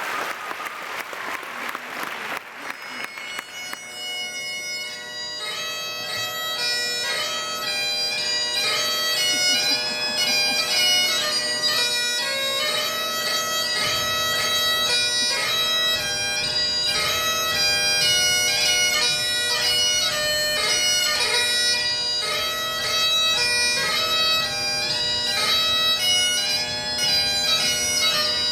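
Applause fading as a Great Highland bagpipe strikes up a few seconds in. Its steady drone sounds under the chanter's melody, the tune for a Highland fling.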